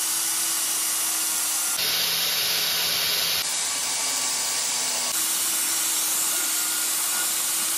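Angle grinder running with a wheel pressed against the steel blade of a coconut opener to finish it: a steady hissing whir with a faint low hum under it. Its tone changes abruptly about two, three and a half and five seconds in.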